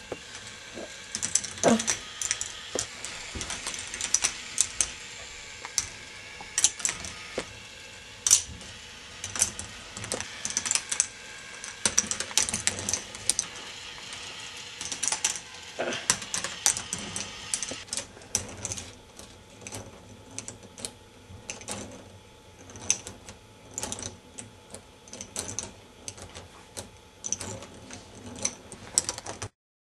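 K'nex ball machine running: small plastic balls clicking and clattering along plastic track over the steady whir of its battery-driven lift mechanisms. The whir drops away about two-thirds of the way through, leaving scattered clicks.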